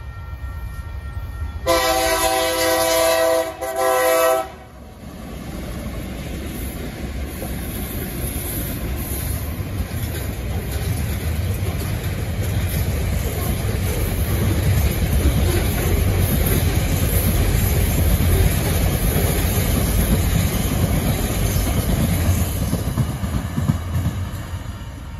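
TasRail freight train led by TR-class diesel locomotives TR15, TR14 and TR09 sounding its chime horn, a long blast and then a short one about two seconds in. The train then rumbles past with its container wagons rolling by on the rails, growing louder and easing off near the end.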